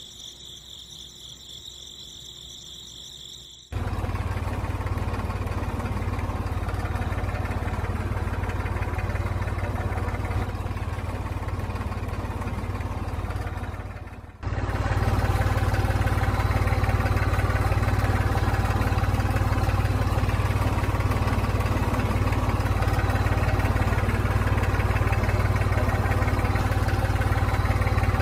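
Crickets chirring for the first few seconds. Then an engine starts running steadily, cutting in abruptly. It drops out briefly about halfway through and comes back louder.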